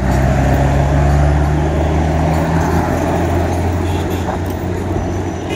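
Street traffic: vehicle engines running close by with a steady low hum that eases after about three seconds, over road noise.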